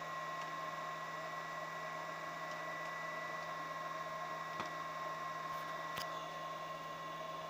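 Steady hiss of water in a mug heating toward the boil around a Soviet 500-watt immersion heater run at reduced power through a diode, with a steady high whine running through it. Two faint clicks come in the second half, about a second and a half apart.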